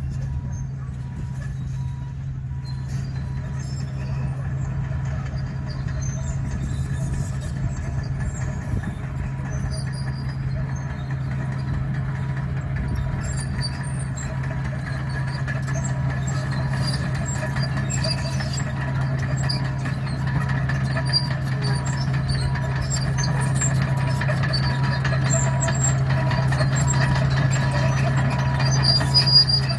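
Komatsu D61 bulldozer's diesel engine running steadily under load, with scattered clicks and crunches from the tracks and the broken asphalt chip-seal surface; a reversing alarm beeps faintly. The engine grows louder toward the end.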